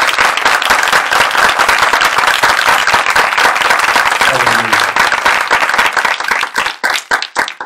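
A church congregation applauding, a dense crowd of clapping hands, thinning out near the end.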